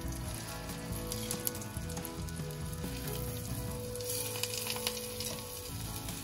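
Egg-battered eggplant slices sizzling in hot frying oil, a steady hiss with small crackles, under quiet background music.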